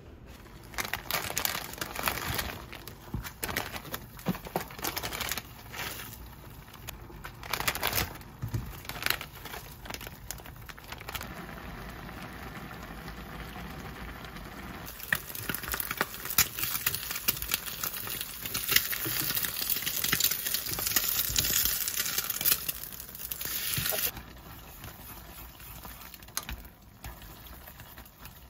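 Stovetop cooking of instant noodles in a pot: scattered clicks and rustling, then a denser hiss of boiling and sizzling for several seconds that eases off near the end, with clinks of chopsticks against the pot.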